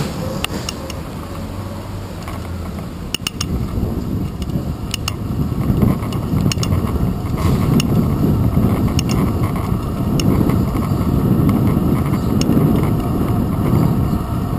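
Bicycle riding along a city street, heard from a handlebar-mounted camera: steady wind and road rumble with scattered sharp clicks and rattles at irregular times. The rumble grows louder about six seconds in as the bike speeds up.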